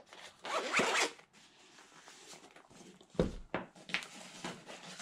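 Zipper on a bag being pulled, a long zip about half a second in, then several shorter zips and handling rustles a few seconds later.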